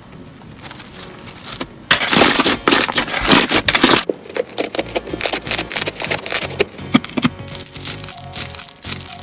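Slime being squeezed and pressed by hand, crackling and popping. The crackle is quieter at first, turns loud and dense about two seconds in for a couple of seconds, then breaks into separate clicks and pops. Soft background music runs underneath.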